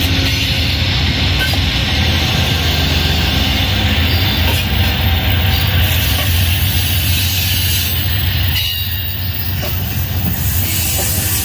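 Two Amtrak GE P42DC diesel locomotives pulling a passenger train past at low speed, a loud steady low engine drone with rolling wheel noise. The sound drops somewhat about eight and a half seconds in, as the locomotives move off and the double-deck Superliner cars roll by.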